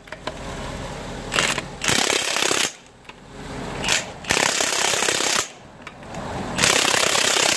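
Milwaukee M18 1/2-inch cordless impact wrench hammering on the wheel's lug nuts in about four short bursts, with brief pauses between them as it moves from nut to nut.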